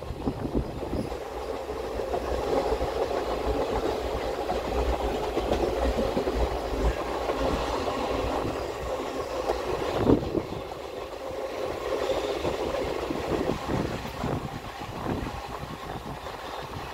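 Passenger express train running, heard from on board: a steady rumble of the coaches with irregular clacks of the wheels over rail joints, one sharp knock about ten seconds in and several more near the end.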